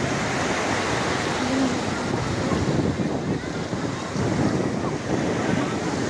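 Sea waves washing on the shore, a steady rushing surf, with wind buffeting the microphone.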